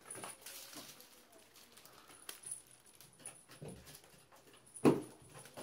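Cats' paws scrabbling and skittering across cardboard laid on the floor during rough play, with scattered light taps and clicks. Near the end comes one loud thump.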